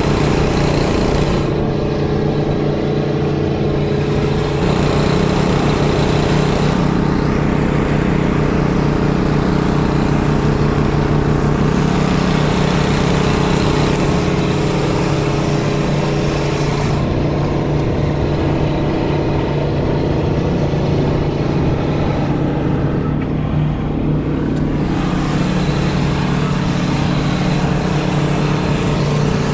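Engines of a mini skid steer loader and the small Briggs & Stratton-engined rough cut mower on its arms, running steadily together while the mower cuts through tall grass and brush.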